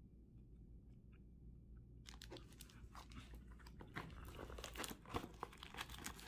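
Near silence for about two seconds, then hands rustling and crinkling packaging and handling the case, a dense crackle of small clicks that grows louder toward the end.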